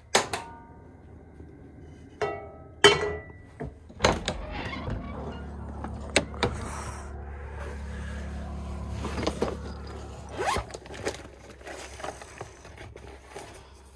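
Clicks and short squeaky tones as a gas stove's control knob is turned, followed by scattered handling knocks and plastic-bag rustling over a steady low hum that runs for several seconds in the middle.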